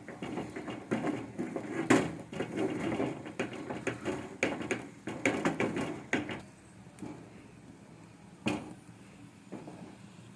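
A spoon stirring and mashing thick maize-meal ugali in a pot: irregular scraping strokes with sharp knocks against the pot, one about two seconds in and another near the end. The stirring is busy for the first six seconds, then turns sparse.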